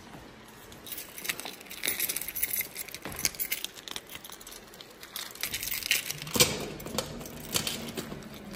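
A bunch of keys on a keyring with a metal charm jangling and clinking, with sharp clicks of a key going into a metal mailbox lock; the jingling grows busier and louder in the last few seconds.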